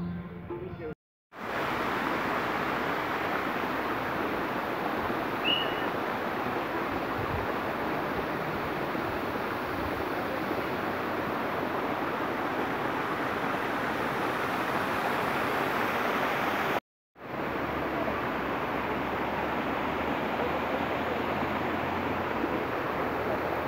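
Steady, even rush of a fountain's water jets splashing into a pool, with one short break a little past the middle.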